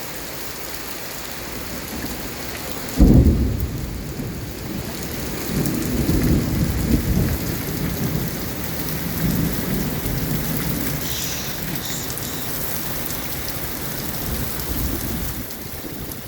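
Heavy rain falling steadily, with a sudden thunderclap about three seconds in that rolls on as low rumbling thunder, swelling and fading for most of the rest.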